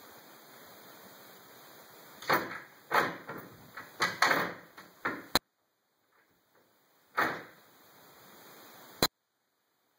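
A closed wooden interior door rattling against its frame and latch hardware. There is a quick run of sharp rattles about two to five seconds in, and one more about seven seconds in.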